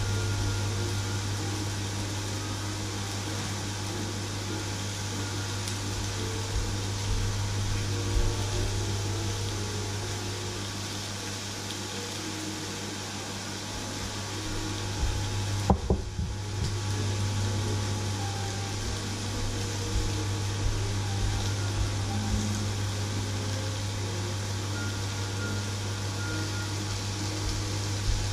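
Meat sizzling in a cast-iron grill pan as an even hiss over a steady low hum, with a couple of short knocks about halfway through.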